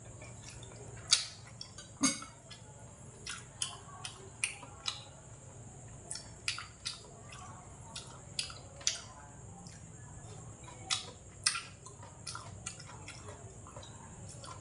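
A man eating: wet chewing and smacking clicks from the mouth at irregular intervals, the loudest about a second and two seconds in, over a faint steady hiss.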